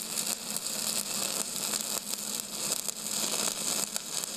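TIG welding arc: a steady crackling hiss with a faint low hum underneath.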